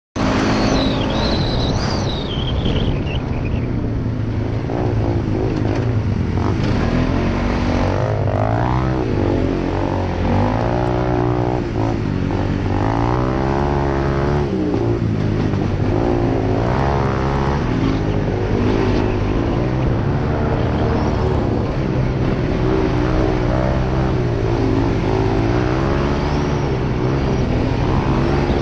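Single-cylinder ATV engine running under way on a sandy trail, its pitch rising and falling again and again as the throttle opens and closes.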